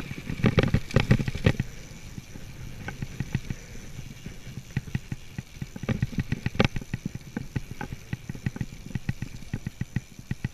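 Mountain bike rattling over a rough grassy dirt track, heard from a handlebar-mounted camera: irregular clatter and knocks from the bike and mount over the low rumble of the tyres.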